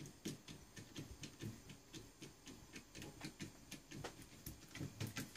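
Faint, rapid clicking and ticking, a few clicks a second, from hand tools working at a stubborn screw with a shake-proof washer in a sheet-metal panel. The clicks grow a little louder near the end.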